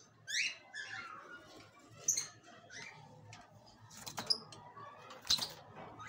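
Lovebird giving a string of short, high chirps, several of them falling in pitch, with a couple of sharp clicks about four and five seconds in.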